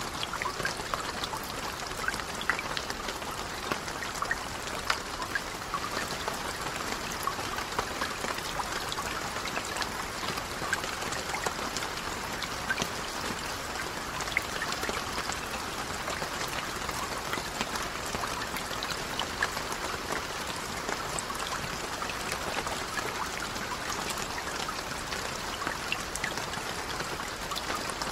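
Steady rain falling on a lake: an even, unbroken hiss with many separate drop ticks standing out from it.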